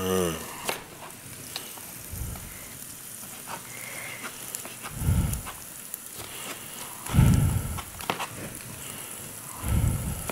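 Steady sizzle of cooking oil frying in a pan, with light clicks of a chef's knife slicing red onion on a plastic cutting board. Four dull thumps come about every two to three seconds.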